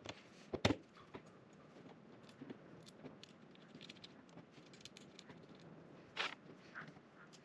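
Scattered light clicks and knocks of aluminium frame parts and small metal screws being handled on a wooden workbench. The loudest is a sharp double knock under a second in, with another knock about six seconds in.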